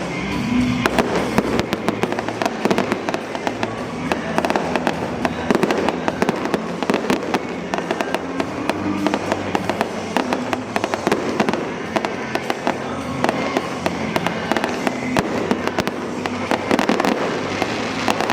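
Fireworks going off in a dense, continuous barrage of rapid bangs and crackles, with music playing underneath.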